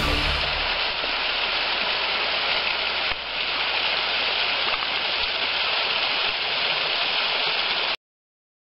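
Small waterfall splashing down a rock face into a rocky pool: a steady rush of falling water, shifting slightly about three seconds in and cutting off suddenly near the end.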